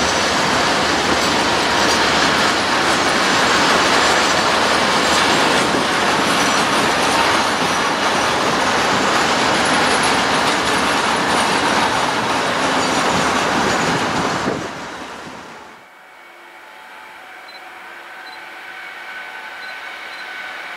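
Freight wagons rolling past at speed: a loud, steady rush of steel wheels on rail with some wheel squeal, which falls away sharply about two-thirds of the way through. Then comes the quieter, slowly swelling sound of an approaching Newag Dragon 2 electric locomotive hauling tank wagons.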